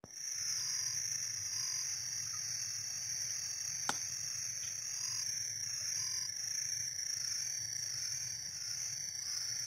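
A steady high-pitched chorus of insects, with short, lower frog calls repeating at an even pace beneath it. A single sharp click about four seconds in.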